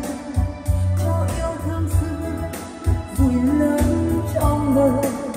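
A song with a singer over a steady bass line, played back through B&W hi-fi floor-standing loudspeakers.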